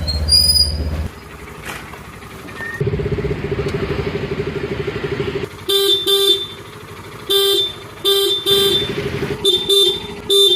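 Car horn honking in repeated short blasts, about eight, several in quick pairs, starting about halfway through. Before it, a loud low rumble in the first second and then a vehicle engine idling with a fast pulsing beat.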